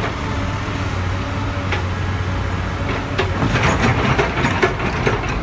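Heavy diesel construction machinery running with a steady low engine hum, and a cluster of sharp metallic knocks and clatter starting a little past halfway.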